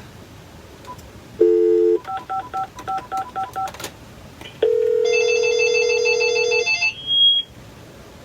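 A telephone call being placed: a short tone, then a quick run of about ten touch-tone keypad beeps dialing the number, then about two seconds of phone ringing, ending with a brief high chirp.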